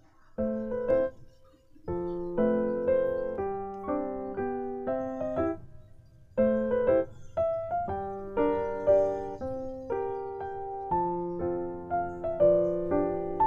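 Background piano music: a melody of single notes and chords, with brief pauses about two seconds in and about six seconds in.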